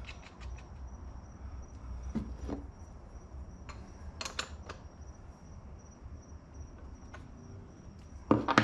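Scattered small clicks and rustles of hands working hookup wires and connectors at a battery terminal, over a steady high-pitched cricket trill and a low hum, with one brief louder sound near the end.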